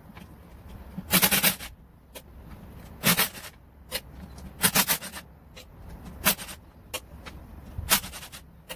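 Cordless power driver with a long socket extension spinning oil pan bolts on a Subaru boxer engine, in five short bursts about a second and a half apart, with small clicks between them.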